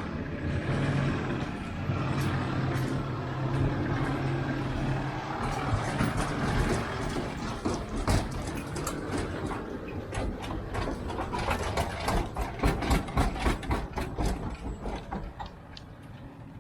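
An engine idling steadily, then from about a third of the way in a growing run of quick mechanical clicks and knocks, at about four or five a second near the end before they fade.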